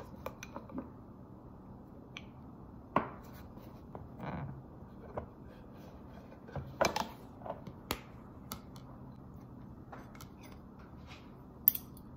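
Scattered clicks and light knocks of a plastic snap-on lid being worked loose and pried off a food container, with a cluster of clicks about halfway through and a sharp click near the end as the lid is set down on the countertop.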